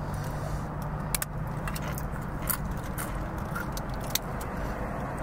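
Crinkling of a foil burrito wrapper and chips being handled, heard as scattered sharp clicks and crackles over a steady low hum inside a car.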